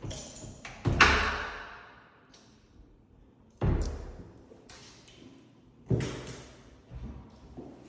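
Closet double doors being handled: three sudden thuds, about a second in, near four seconds and near six seconds, each with a short echoing tail, and a few lighter knocks near the end.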